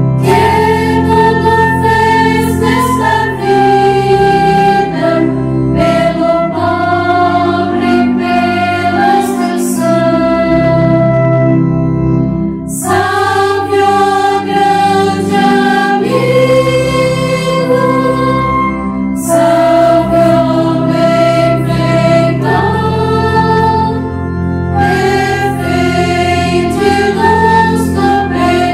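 Choir of women's voices, Carmelite nuns, singing a hymn in unison phrases over sustained low organ chords. The singing pauses briefly between phrases about 12, 19 and 24 seconds in.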